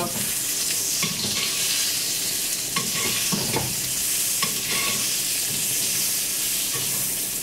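Butter sizzling steadily in a black pan as a wild boar loin is basted with it, a spoon now and then knocking lightly against the pan.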